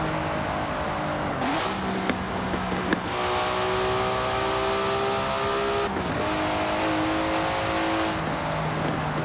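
Nissan Skyline GT-R R34's RB26DETT twin-turbo straight-six running under way. Its engine note steps up in pitch twice, climbs slowly, then steps back down twice, with a couple of short sharp clicks along the way.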